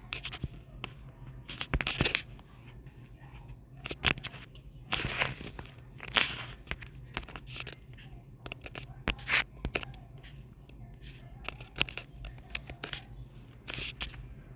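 Irregular clicks, crackles and short rustling bursts, some sharp and loud, over a low steady hum.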